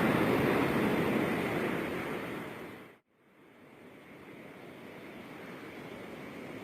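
Ocean surf breaking and washing up on the beach. It fades away to silence about three seconds in, then quieter surf fades back in and holds steady.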